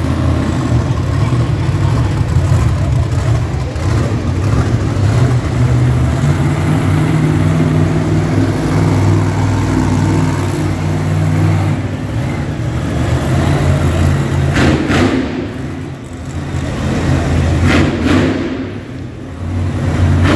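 Grave Digger monster truck's supercharged V8 engine running loud and steady, then its revs falling and rising several times in the second half as the truck manoeuvres.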